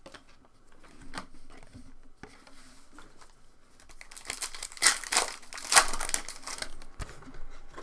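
Foil trading-card pack wrapper crinkling and tearing as it is opened, with a few light clicks early on and a louder stretch of crinkling about four seconds in, lasting about two seconds.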